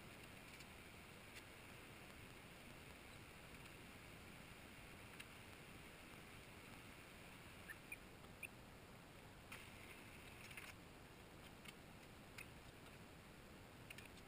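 Near silence: faint steady room hiss, with a few scattered soft clicks and light taps, most of them in the second half.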